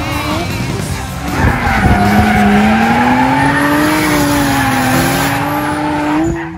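Drift cars in a tandem slide: an engine held at high revs, its pitch wandering slowly up and down, over the squeal and hiss of sliding tyres. It gets louder about a second and a half in.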